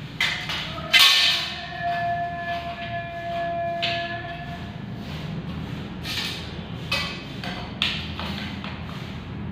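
A long metal tile corner-bead strip knocking against the tiles: one sharp strike about a second in that rings on for several seconds, then a few lighter knocks and clicks as the strip is set along the tile edge.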